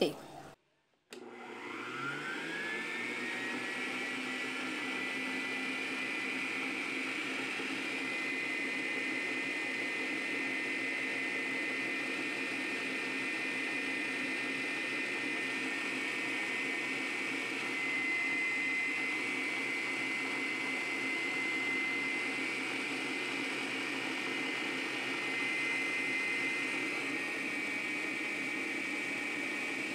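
Electric stand mixer starting about a second in, its motor whine rising in pitch and then running steadily as the wire balloon whisk beats egg yolks and sugar.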